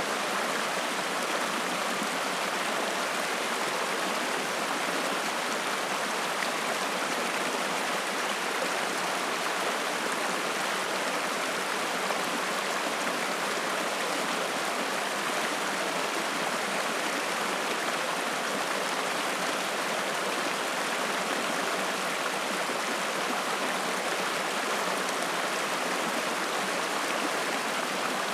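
Shallow mountain stream rushing and splashing over rocks, a steady, even water noise.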